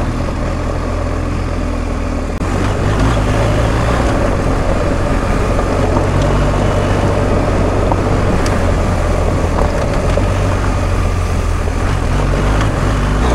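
BMW R1250 GS Adventure's 1254 cc boxer-twin engine running steadily while the bike is ridden along, under a constant rush of wind and tyre noise.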